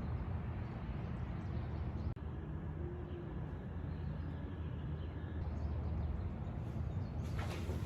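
Steady low hum under a faint background hiss, with a single faint click about two seconds in.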